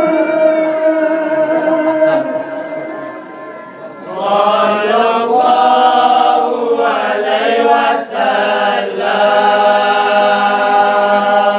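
Singing in long, held, chant-like phrases, with a short pause about a third of the way in and a brief break near the end.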